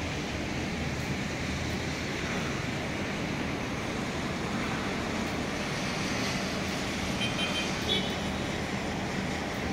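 Steady noise of city traffic on rain-soaked roads, an even wet hiss. A brief high-pitched sound comes about seven to eight seconds in.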